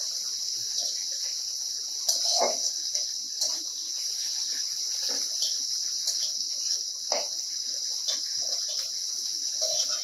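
Leaves frying in mustard oil in a steel kadai: a steady high sizzle as they are fried crisp, with a steel spatula scraping and tapping against the pan now and then as they are stirred.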